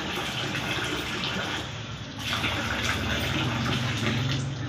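Bedsheet being shaken out and spread over a bed, the cloth rustling and swishing in a steady hiss that breaks off briefly about two seconds in.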